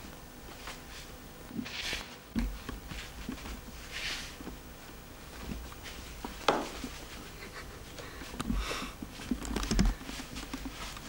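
Kittens playing with a sheet of paper: scattered short rustles and crinkles of the paper as they bat at it, with a few light knocks, the sharpest about six and a half seconds in.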